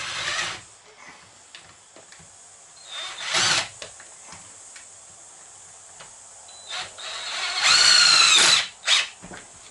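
Cordless drill driving screws into the bus's window frame in short runs: a brief burst at the start, another about three and a half seconds in, and a longer, louder run near the end whose whine rises then drops as the screw seats, followed by a quick blip.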